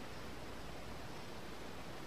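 Steady, even hiss of background noise with no distinct sound or event.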